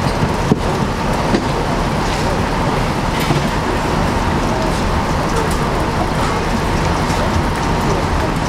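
Power cutting tool cutting through the metal of a burned-out vehicle: a loud, steady mechanical din with a faint constant whine.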